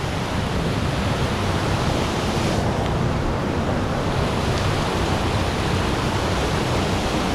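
Steady rush of high, flooded river water pouring over a spillway, a loud even noise with no breaks.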